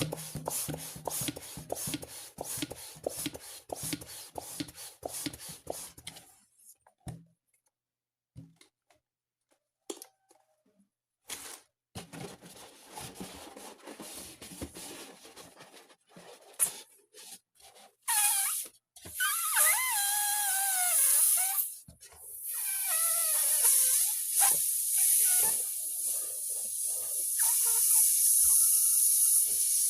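Rubber balloon being handled: a quick run of rubbing strokes, then a few seconds of quiet with scattered clicks. Near two-thirds of the way through, a squeal wavers up and down in pitch, and then a steady hiss of air rushes on.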